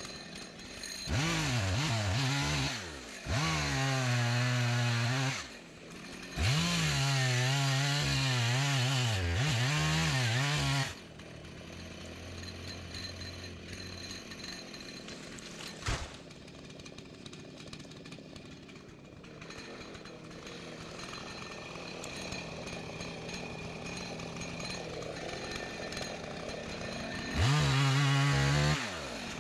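Gas chainsaw revved hard in three long bursts, its pitch wavering, then running quieter at idle for about sixteen seconds with one sharp click partway through, and revving up loud again near the end.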